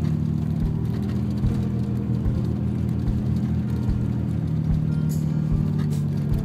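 A vehicle driving slowly on a snow-covered road, heard from inside the cab: a steady low engine drone with irregular low bumps as it rolls over the ruts.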